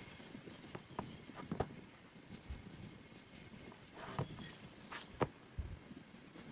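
Scratchy rubbing with a handful of light, irregular knocks: a wooden bowl being handled while beeswax is worked into its surface.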